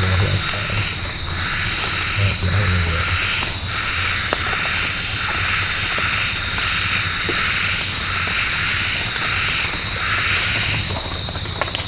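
Night-time forest animal chorus: a pulsing call repeating about once a second over a steady high-pitched drone.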